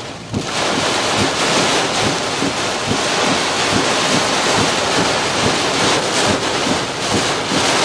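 Heavy rain hitting the car, heard from inside the cabin: a loud, steady rush full of dense patter from the drops.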